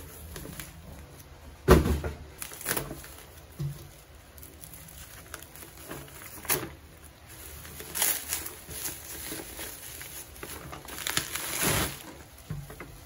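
Plastic bubble wrap crinkling and rustling in irregular bursts as it is peeled off a boxed figure. The sharpest crackle comes about two seconds in, and a longer rustle comes near the end.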